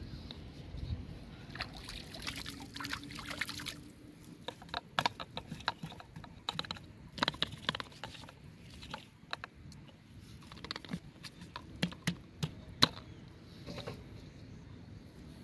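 Small water sounds and scattered clicks, taps and rustles from handling plastic-bottle fishing rigs on sticks at the water's edge, with one sharper knock near the end.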